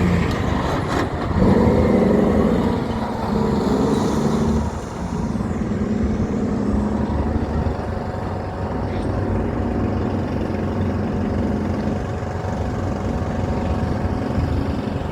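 Big truck's engine running close by as it drives past. The engine note steps up and down several times in the first few seconds, then runs steadier.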